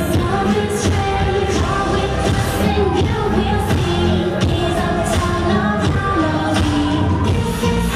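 Loud recorded song: singing over a steady beat with regular drum hits.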